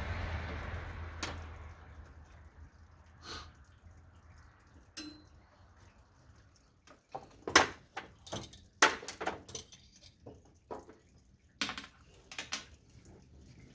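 Scattered light clicks and clinks of hand tools and small metal parts being handled, most of them bunched from about seven to thirteen seconds in. A rushing noise fades out in the first two seconds.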